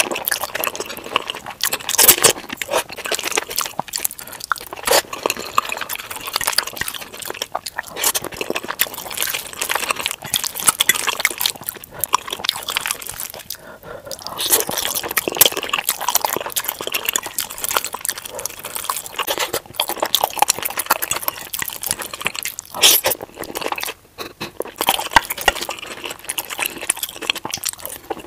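Close-miked ASMR eating of cheesy chili-loaded fries: a fast, steady run of wet, squishy chewing and mouth sounds, played at double speed, with the fork clinking now and then.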